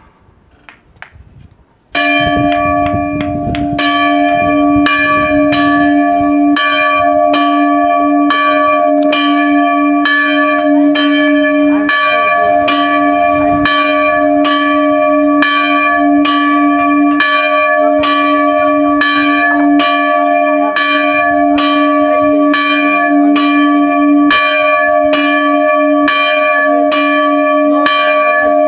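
An Orthodox church bell chimed by a rope pulled on its clapper. It starts about two seconds in and goes on as a steady run of strikes, roughly one and a half a second, each ringing on into the next.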